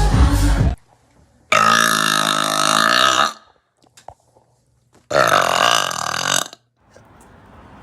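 Two long, drawn-out burps, each with a clear pitch, the first lasting almost two seconds and the second about a second and a half. A snatch of music cuts off just before the first.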